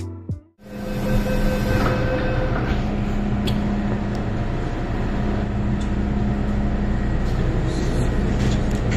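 Steady low hum and rumble inside an MTR M-Train metro carriage, with the doors shut at a platform. A few faint ticks sit over it; a short burst of intro music ends about half a second in.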